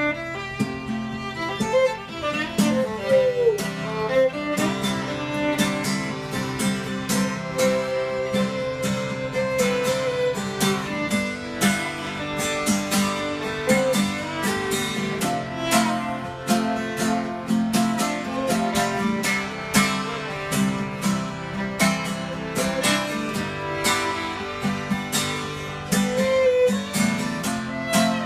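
Fiddle playing a melody over steadily strummed acoustic guitar, with no singing: an instrumental break in an acoustic song.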